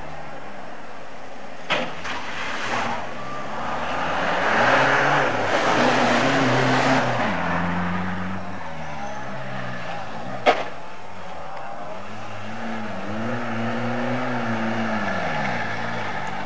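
Rally car engines on a stage: one car rushes past with a surge of engine and tyre noise, and after a sharp click another car approaches, its engine pitch rising and falling through gear changes and lifts.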